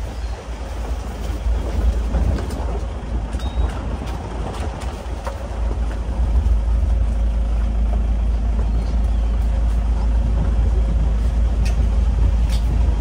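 A steady low rumble that gets louder about six seconds in and then holds.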